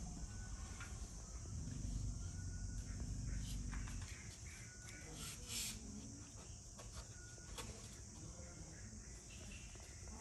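Bush ambience: insects make a steady high drone, and short bird chirps come and go. A low rumble swells in the first few seconds and is the loudest part.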